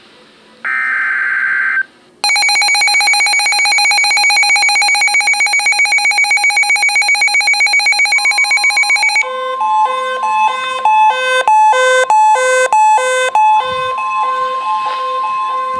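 Emergency Alert System activation: a short burst of data tones from the alert header, then about seven seconds of the pulsing attention tone. About nine seconds in, a steady high tone takes over, with a rhythmic pattern of short beeps at several pitches over it.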